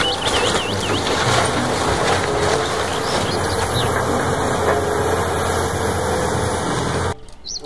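Caterpillar tracked hydraulic excavator's diesel engine running under load as its bucket tears apart a wooden house, with scattered cracks of splintering timber and falling debris. The sound cuts off abruptly near the end.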